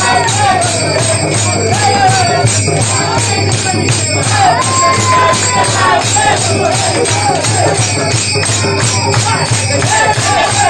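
A group singing a devotional song together, with hand clapping and a steady jingling percussion beat.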